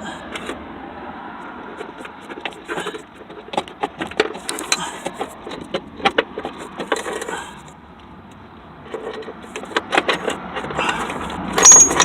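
Irregular clicks, knocks and metallic rattles of a throttle cable and its plastic clip being worked loose and pulled out of the accelerator pedal arm, with a louder clatter near the end as it comes free.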